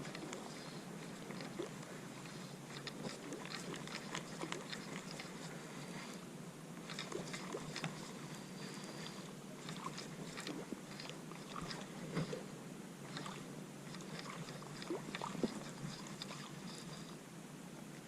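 Fishing reel being cranked to retrieve a cast lure: faint irregular clicks and ticks, with a faint high whine that comes and goes.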